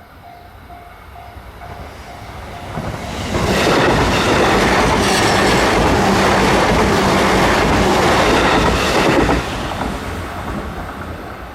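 A train passes over a level crossing, its wheels clacking over the rail joints. It builds up, is loudest for about six seconds in the middle, then fades away. At the start, the crossing's warning bell can be heard dinging rapidly before the train drowns it out.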